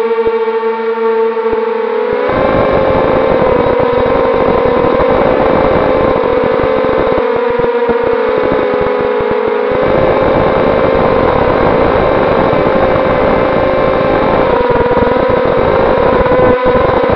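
Eachine Racer 250 racing quadcopter's brushless motors and propellers whining in flight, picked up by its onboard camera: a steady mid-pitched hum with many overtones that wavers slightly with throttle. The rough low buzz beneath it drops away twice, for the first two seconds and again for a few seconds about halfway, as the throttle eases.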